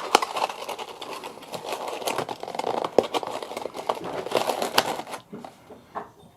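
Packaging being opened by hand: crinkling and rustling with a few sharp clicks, dying down about five seconds in.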